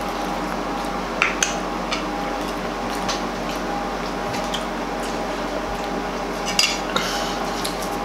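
A metal fork clinking and scraping against a dinner plate, a few times about a second in and again later, over a steady background hum.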